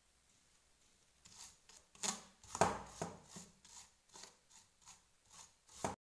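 A small brush wet with petrol scrubbing the solder side of a printed circuit board, cleaning it: about a dozen quick scratchy strokes, roughly two to three a second, starting about a second in.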